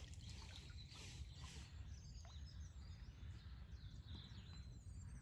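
Faint outdoor quiet with small birds chirping, over a low steady rumble. In the first second or so, water trickles off a just-emptied pole cup into the lake.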